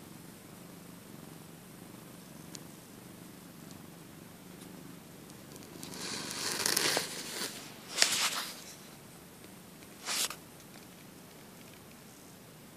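Cat purring steadily, the purr fading after about five seconds. Then come three bursts of rustling as the phone rubs against the cat's fur, the loudest about eight seconds in.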